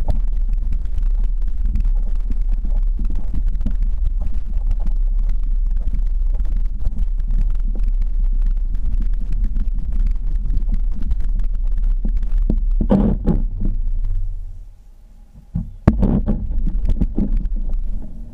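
Quadcopter rotors heard through a GoPro's housing as a steady low rumble with buffeting. The rumble dies away about fourteen seconds in, a sharp knock follows, and a shorter burst of the same rumble comes back near the end.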